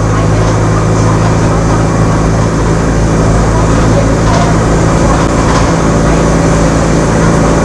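Mercedes-Benz OF-1418 bus's diesel engine running at a steady pitch, a low even drone.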